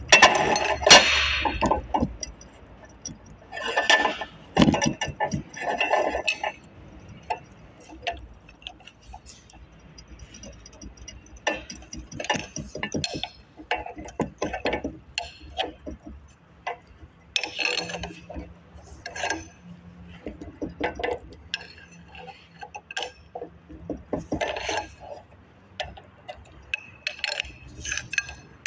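Irregular metallic clinks and knocks of hand tools and parts against a hydraulic motor's steel housing as it is taken apart in a bench vise: a socket and bar turning its bolts, parts lifted off and set down. The loudest clatter comes about a second in and again around four to six seconds.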